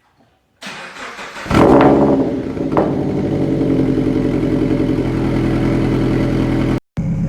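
Toyota GT86's 2.0-litre flat-four engine, fitted with unequal-length headers, cranking on the starter, catching with a loud flare of revs, then settling into a steady idle. The sound drops out briefly near the end.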